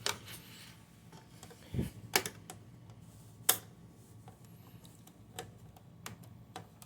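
Scattered light clicks and ticks of a Phillips screwdriver working a tight screw out of a computer's plastic back cover, with a dull knock about two seconds in, over a faint steady hum from an air conditioner.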